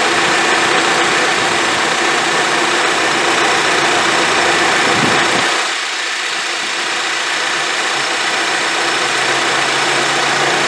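2010 Honda CR-V engine idling with the A/C on, heard from under the car, with the steady rush of the A/C condenser fan running once the compressor connector is back in place. About halfway through, the low rumble drops away.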